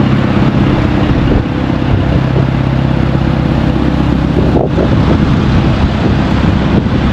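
A large engine idling close by: a low, even hum that holds one pitch, over general street noise.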